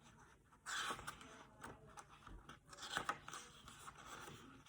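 Faint rustling and scraping of paper as a picture book's page is handled and turned.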